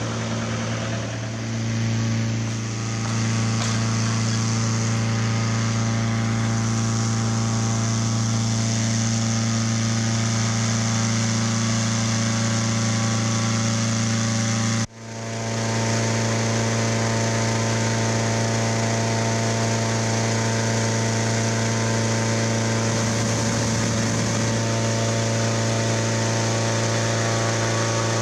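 Hot-air balloon inflator fans driven by small petrol engines, running steadily at full speed as they blow cold air into the envelope. The sound drops out briefly and picks up again about halfway through.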